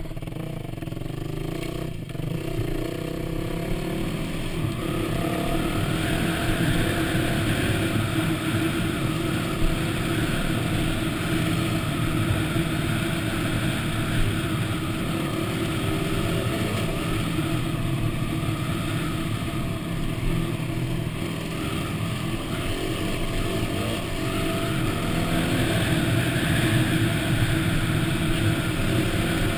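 Yamaha WR250 dirt bike engine running under way at steady trail speed, recorded from the bike itself; it picks up a little a few seconds in and again near the end.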